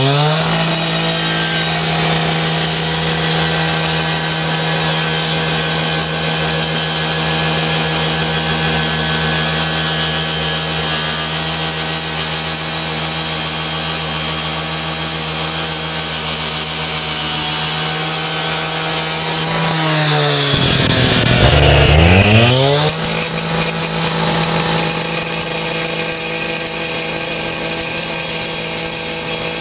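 Gas-powered rotary rescue saw running at high, steady revs as its blade cuts into the carriage bolt heads on a steel door. About twenty seconds in, the engine speed drops sharply and climbs back up.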